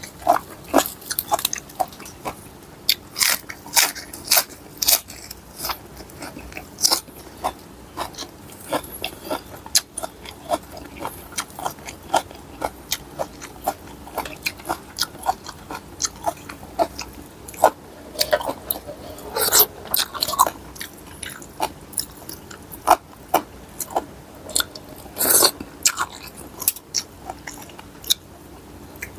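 Close-up chewing and crunching of mixed-seafood papaya salad, with many irregular crisp crunches and bites.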